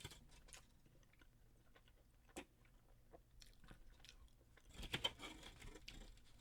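Faint chewing and mouth clicks, a little louder for about a second around five seconds in.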